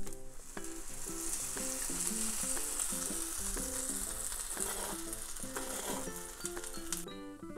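Butter sizzling under a grilled cheese sandwich frying in a nonstick pan, cutting off suddenly near the end. A light background melody plays throughout.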